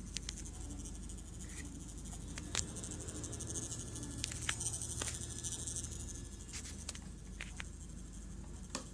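Servos of a crashed Walkera Furious 320 quadcopter faintly clicking and buzzing as they try to move, with a faint low hum swelling slightly in the middle. They do not work.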